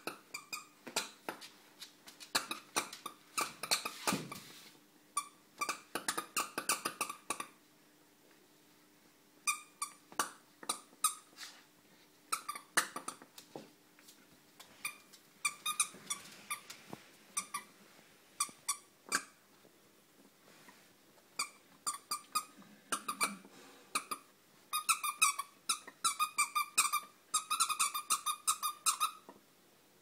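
Squeaky toy ball being chewed by a Puli puppy, its squeaker going off again and again in quick runs of short squeaks with a couple of brief pauses, fastest and loudest near the end.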